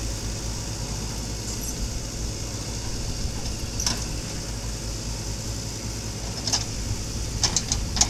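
JCB backhoe loader's diesel engine running steadily while the backhoe arm swings, with a few short knocks, several close together near the end.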